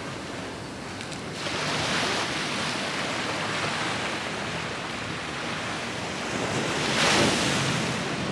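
Ocean surf washing against the shore, with wind blowing across the microphone; the surf swells up about a second and a half in and a wave breaks louder about seven seconds in.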